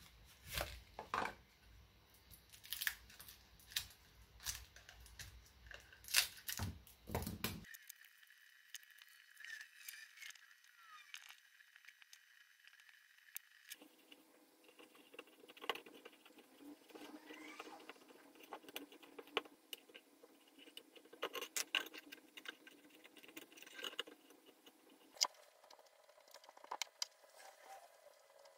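Light handling noises: scattered clicks, taps and rustles as hands open a packet of two-part epoxy putty and press the putty onto the metal body and frame of an old oil lamp.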